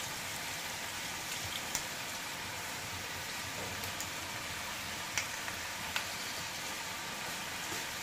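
Seasoned pork skin and fat pieces sizzling steadily in an aluminium wok, with a few small pops.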